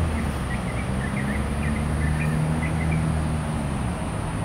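Steady road-traffic rumble with a low engine hum that shifts in pitch as vehicles pass. A run of short, high chirps sounds over it for the first three seconds or so.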